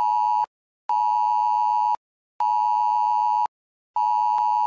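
Broadcast-interruption beep tone: a steady electronic beep repeating, about a second on and half a second off, with the last beep held about twice as long.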